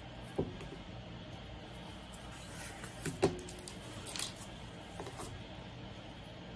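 Handling sounds from a jewellery gift box and necklace: a few soft clicks and knocks, the loudest pair a little after three seconds, and a brief light rustle, over a steady low hum.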